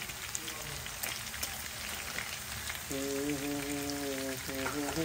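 Chicken pieces frying in oil in a pan: a steady sizzle with fine crackles. A brief steady hum joins in about three seconds in.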